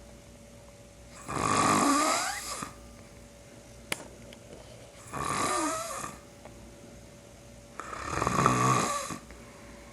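A man snoring, three long snores about three seconds apart, each a rasping in-breath lasting a second or so; a brief click comes between the first two. It is heavy snoring that the uploader takes for borderline sleep apnea.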